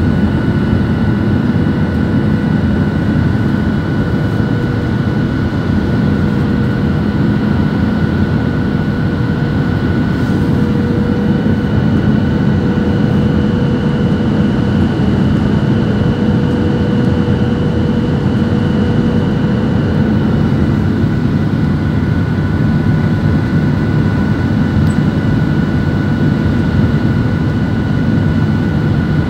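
Steady roar of a jet airliner's engines and rushing air, heard inside the cabin as it descends to land, with a faint steady whine on top.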